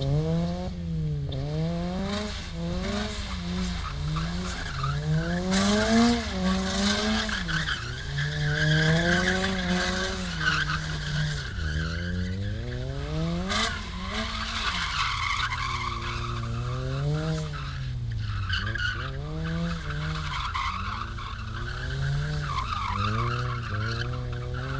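A car drifting: its engine revs climb and drop over and over, every second or two, while the tyres squeal and skid on the road surface.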